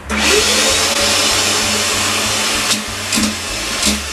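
Bosco TurboVac Pro handheld vacuum cleaner switched on: the motor spins up with a rising whine over the first second, then runs with a steady rushing suction noise. Three short, sharp clicks come in the second half.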